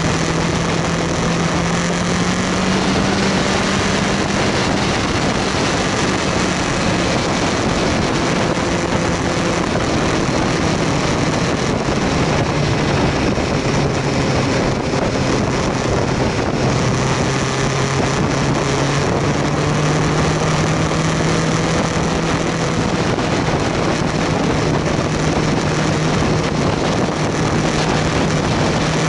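BMW S1000R's inline-four engine running at a steady road speed, its pitch drifting gently up and down with the throttle, mixed with heavy wind noise on the microphone.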